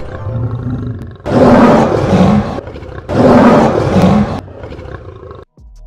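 Lion roaring twice, each roar lasting a little over a second.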